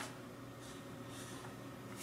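Faint rustle of a folded paper leaflet being unfolded by hand: two soft brushes of paper about half a second apart, over a low steady hum.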